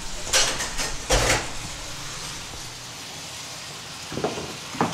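Ceramic bowls and dishes knocking and clinking as they are set down on a wooden table. There are a few knocks about half a second and a second in, and more near the end, over a faint steady hiss.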